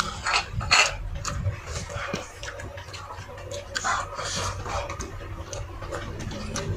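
Close-up eating sounds from a person eating fish in sambal with her fingers: irregular lip smacks, chewing and small wet clicks as food is picked up and put in the mouth.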